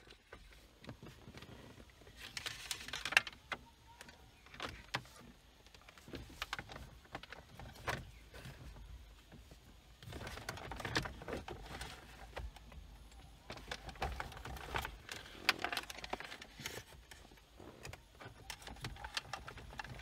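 Hands working in a car's centre console, handling plastic interior trim and a loose cable: irregular clicks, small knocks and rustling, with a louder knock about three seconds in and again near three quarters of the way through.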